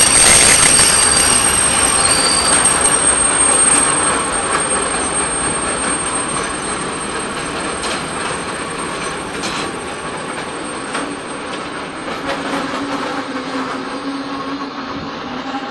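Freight train of flat wagons loaded with open-top containers rolling past close by, its wheels squealing in a steady high whine over the rumble of the wagons, with a few clicks as wheels cross rail joints. The whine and the rolling noise gradually get quieter.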